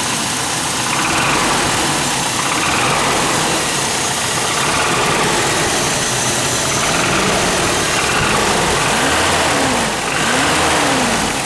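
Toyota 22RE 2.4-litre four-cylinder engine running with a loud "death rattle", the kind of knock the owner tags as rod knock. It is revved up and let back down a few times in the second half.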